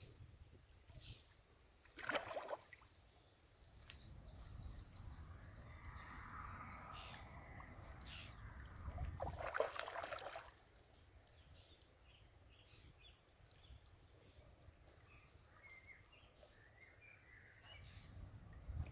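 Faint outdoor ambience with scattered small bird chirps. A low rumble runs through the first half, and there are two short knocks, about two seconds in and about ten seconds in.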